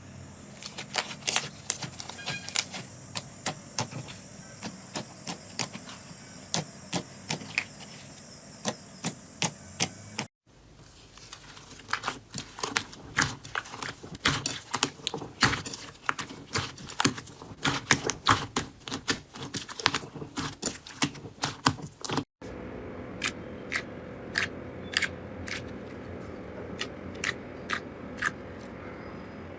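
Slime being squeezed, poked and stretched by hand, making rapid irregular sticky clicks, crackles and pops. The sound changes abruptly twice, as one slime gives way to another.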